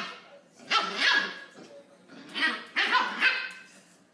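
A Shiba Inu puppy barking at an older dog in play: a string of short barks in quick groups.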